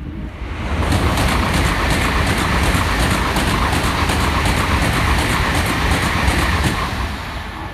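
A Tokaido Shinkansen N700-series train runs past at speed, a loud rush of wheel and air noise laced with rapid, even clicking. It builds about half a second in, holds steady, and dies away near the end.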